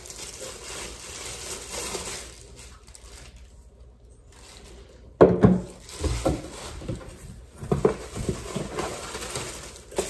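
Plastic packaging bags crinkling and a cardboard box rustling as vacuum parts are handled and unpacked. A sudden thump comes about five seconds in, followed by irregular knocks and rustles.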